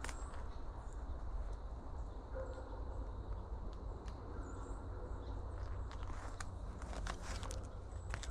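Footsteps and twigs crackling in dry brush, the crackles bunched near the end, over a steady low rumble.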